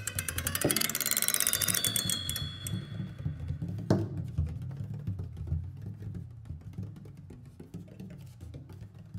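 Experimental sound composition: a dense, fast stream of clicks with a few high held tones for the first three seconds, a single sharp hit about four seconds in, then quieter rapid ticking over a low pulsing drone.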